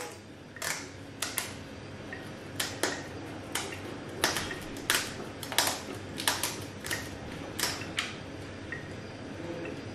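Kitchen scissors snipping the fins off a whole raw red fish: a string of sharp, irregular clicks, roughly one or two a second.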